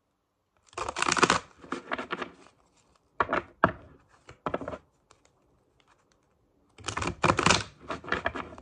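A tarot deck being shuffled by hand: several bursts of rapid card flicks, the loudest about a second in and again near the end, with a quiet pause between.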